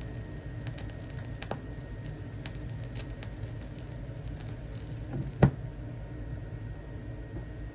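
Vinyl record surface noise as the turntable's stylus tracks the silent lead-out groove: a low rumble and hiss with scattered crackles and pops, and one loud pop about five and a half seconds in.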